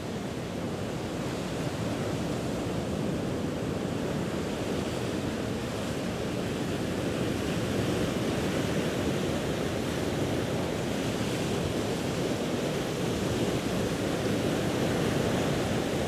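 Ocean surf washing onto a beach: a steady, unbroken rush of waves that swells slowly over the first half.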